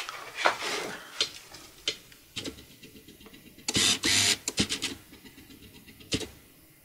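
Clicks, taps and scraping from a plastic laptop palm rest and its ribbon-cable connector being worked with a small screwdriver and handled. There is a louder rustling scrape about four seconds in.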